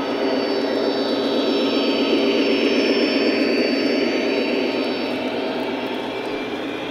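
Lionel O-gauge model passenger train rolling past close by, its wheels rumbling steadily on the three-rail track. The rumble is loudest about two to three seconds in as the diesel locomotives pass, then eases as the coaches go by.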